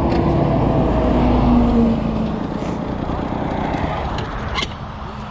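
Heavy truck passing on the road alongside: a loud low rumble whose pitch slides down as it goes by, easing off after about two seconds. A single sharp click near the end.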